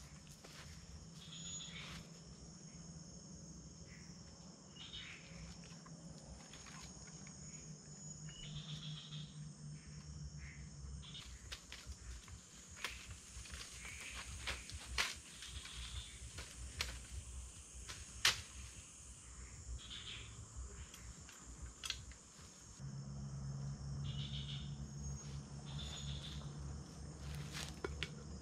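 Night-time tropical forest insect chorus: a steady high buzzing of crickets and other insects, with short chirping calls repeating every couple of seconds. Occasional sharp clicks and snaps from people moving and working on the forest floor.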